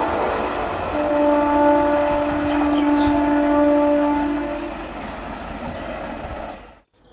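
WAP-7 electric locomotive approaching at speed with its horn blowing: the tail of one blast, then a long multi-tone blast from about a second in until about four and a half seconds, over the rumble of the train on the track. The running noise then fades and cuts off abruptly just before the end.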